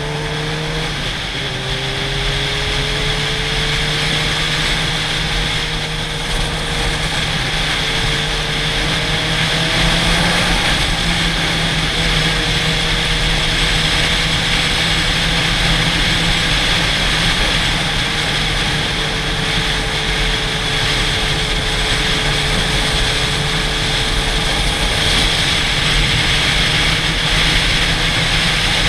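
Sport motorcycles cruising at steady road speed, the engines' note holding level with a few slight shifts in pitch, under heavy wind rush on a helmet-mounted camera.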